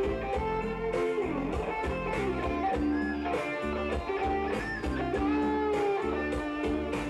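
Live band music led by an electric guitar playing sustained notes, some bending in pitch, over bass and a steady drum beat.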